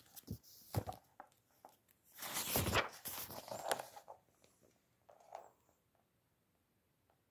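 Paper pages of a book being handled and turned: a few light clicks and rustles, then a long papery swish as a page turns about two seconds in, and a softer rustle about five seconds in.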